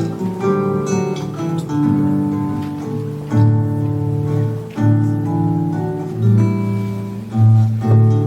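Classical guitar trio playing: plucked melody notes over a repeating low bass line, each note attacking and then ringing on.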